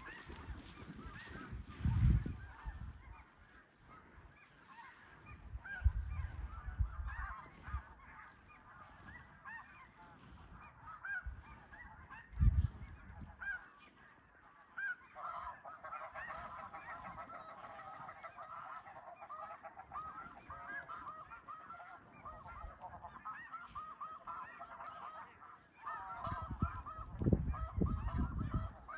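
A flock of snow geese calling, a dense chorus of many overlapping short honks that grows thicker and louder about halfway through. Low rumbles come and go several times.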